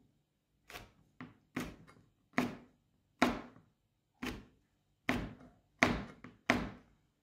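Chef's knife slicing a fresh red chili on a plastic cutting board: about ten separate knocks of the blade on the board, unevenly spaced, roughly one every half second or so.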